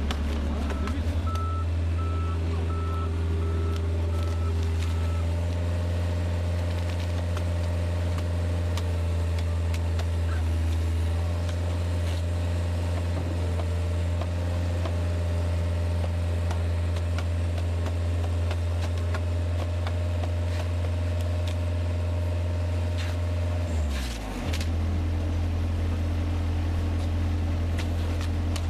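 Heavy construction vehicle's engine running steadily. For roughly the first five seconds a reversing alarm beeps in a regular series. About three-quarters of the way through, the engine note dips and settles at a different pitch.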